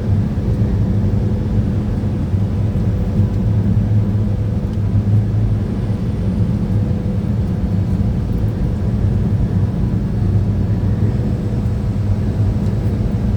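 Steady low engine and road noise of a semi truck heard from inside the cab while driving.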